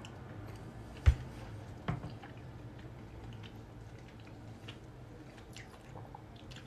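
A person chewing a mouthful of soft gnocchi in a creamy ricotta sauce, with faint wet mouth sounds. A thump about a second in and a smaller one near two seconds.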